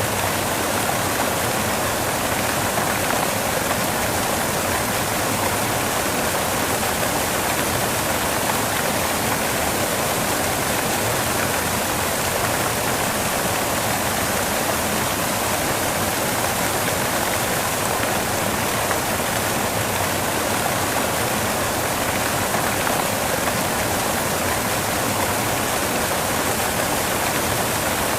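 Steady white noise, an even hiss with no change or separate events.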